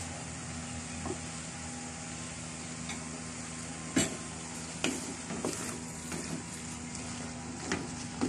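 Cuttlefish, tomato and green chilli frying in a clay pot on medium heat with a steady low sizzle. From about four seconds in, a wooden spoon stirs the mixture and knocks against the pot about five times; the first knock is the loudest.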